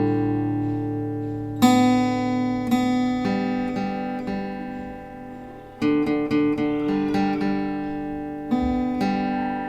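Background music: acoustic guitar chords struck every few seconds, each left to ring and slowly fade.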